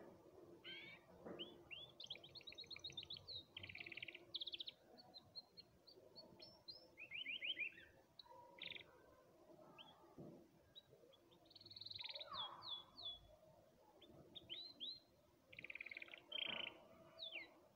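Canary singing in its cage: phrases of rapid trills and quick rising and falling chirps, broken by short pauses.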